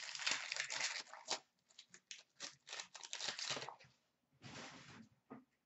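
Plastic wrapper of a hockey card pack being torn open and crinkled in the hands: a dense ripping rustle at first, then a run of short crinkles, and one more brief rustle near the end.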